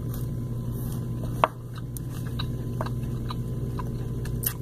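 Biting into and chewing a room-temperature Combat Crunch protein bar, a solid chew, with scattered small mouth clicks and one sharper click about a second and a half in. A steady low hum lies underneath.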